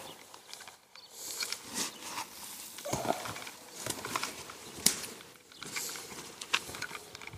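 Non-woven frost-protection fleece rustling in irregular bursts as it is handled and pulled at around a wrapped shrub, with a few sharp clicks.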